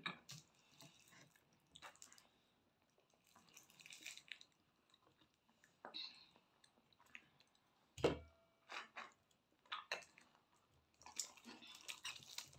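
Faint sucking and slurping of juice drawn through straws from small drink cartons, in short scattered bursts with quiet gaps. A sharp knock about eight seconds in is the loudest sound.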